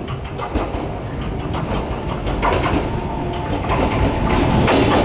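Echizen Railway electric train running along the track and growing louder as it nears, with short clicks from the wheels over the rail and a steady high squeal from the wheels.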